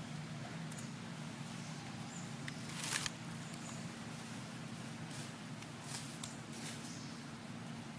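Outdoor ambience with a steady low hum and brief rustling scuffs: the loudest comes about three seconds in, and several shorter ones follow in the second half.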